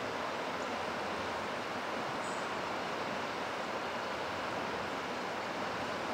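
Steady rushing of river water, an even noise with no rhythm, and a faint short high chirp about two seconds in.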